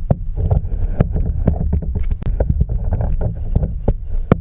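Kayak paddling: irregular knocks and splashy clatter over a low rumble of wind on the microphone, starting suddenly.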